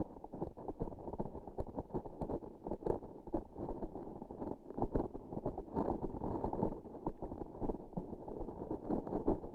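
Close-miked handling of a transparent sticky object: a dense, irregular run of small sticky clicks and crackles, muffled.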